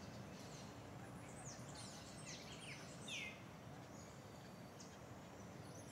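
Faint birds chirping in short falling chirps, the loudest about halfway through, over a low steady background hiss.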